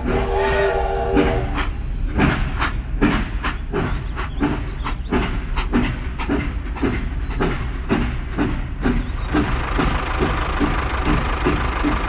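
Toy steam locomotive running on plastic track: a steam-whistle sound for about the first second, then a steady rhythmic chugging beat of about three clicks a second over a low motor hum, with a hiss building near the end.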